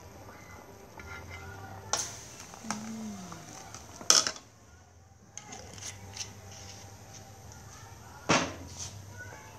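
Metal ladle knocking against a metal soup pot: three sharp clanks, the loudest about four seconds in, over a low steady background hum.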